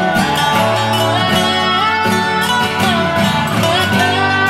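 Instrumental background music led by guitar, with a sliding melody line over it.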